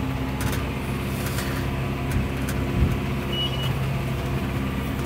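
Massey Ferguson 6615 tractor running steadily under load while pulling a John Deere 566 round baler. A few light clicks and a short thump about halfway through.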